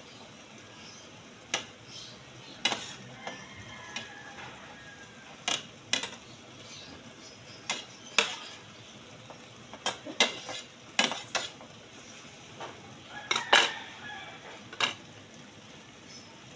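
Metal spoon clinking and scraping irregularly against a plate and pan as cut vegetables are scooped up, a dozen or more sharp clinks with a cluster of the loudest about two-thirds of the way through. A low steady sizzle from the pan runs underneath.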